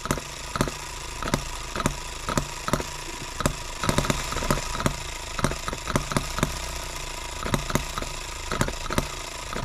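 H73 single-cylinder model engine running steadily under its own power, a regular beat of sharp firing strokes about three a second over a light mechanical whir.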